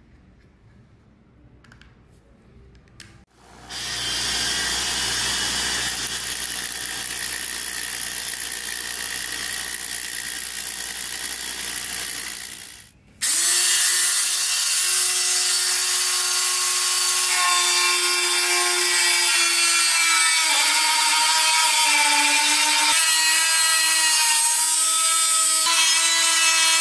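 A Dremel-type rotary tool fitted with a homemade cutting disc, cut from a used angle-grinder disc. A few light clicks come first while the disc is mounted. The tool then runs with a loud steady whir for about ten seconds, stops briefly, and starts again with a high whine whose pitch dips several times as the disc bites into sheet metal, cutting it and throwing sparks.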